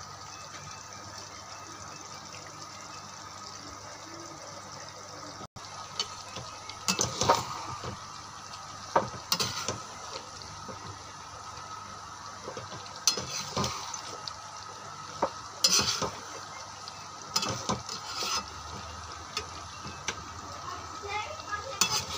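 Chicken curry with potatoes sizzling steadily in a frying pan. From about seven seconds in, a spatula stirs it, scraping and knocking against the pan in irregular strokes.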